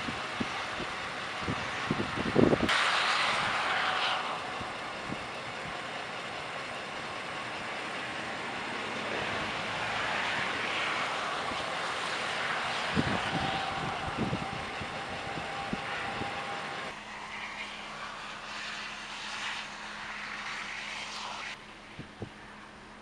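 Outdoor traffic sound: vehicles driving past with a steady noise of tyres and wind. The background changes abruptly a few times as one clip cuts to the next.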